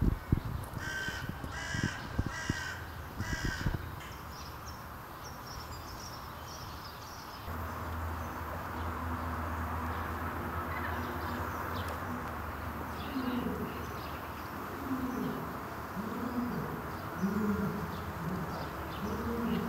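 An animal's harsh calls, four in a row over about three seconds, like a crow cawing. Then a steady background hum carries on.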